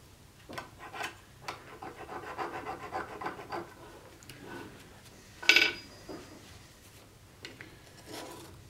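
Steel parts of a small metal jig being handled on a wooden workbench: light knocks, then a scraping rub of steel sliding on steel for about two seconds. About halfway through comes one sharp, ringing clink of metal striking metal, followed by a few soft knocks.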